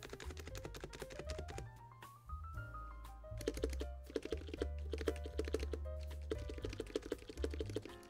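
Keystrokes on a NiZ X99 Pro electrostatic capacitive keyboard, with its stabilized large keys (Shift, space bar) pressed over and over. The stabilizers damp them, so there is little metallic rattle. The presses turn fast and dense about halfway through, over background music.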